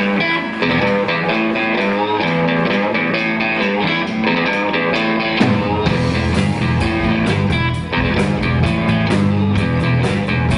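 Live blues band playing, opening on electric guitar alone; about halfway in, the bass and drums come in and the full band plays on.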